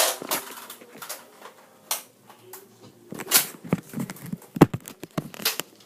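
Irregular clicks and knocks, five or so sharp ones spread over a few seconds, from objects being handled.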